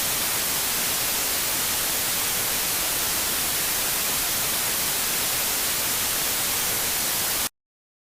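Steady, loud hiss of white-noise static, like a television with no signal. It cuts off abruptly to dead silence about seven and a half seconds in.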